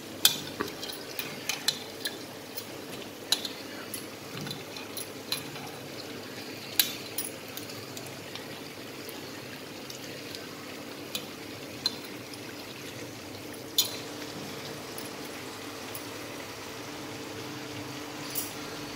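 Soaked tamarind squeezed and mashed by hand in water in an aluminium bowl: soft wet squishing and sloshing, with scattered sharp clinks against the metal bowl. A faint steady hum runs underneath.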